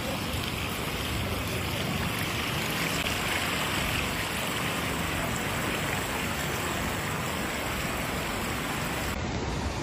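Steady rushing noise of floodwater flowing across a road and verge. The noise shifts abruptly near the end.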